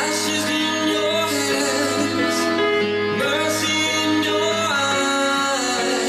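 A song with singing, played at full volume through a JBL Flip 2 portable Bluetooth speaker with two drivers.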